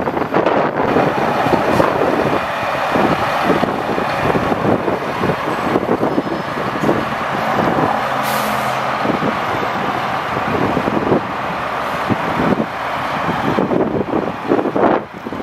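Grapple truck's Caterpillar C7 diesel engine running steadily, driving the hydraulics as the Builtrite grapple boom is raised.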